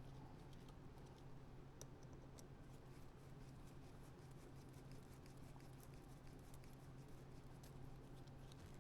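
Near silence: a steady low hum with faint, scattered small clicks of small carburettor parts being handled.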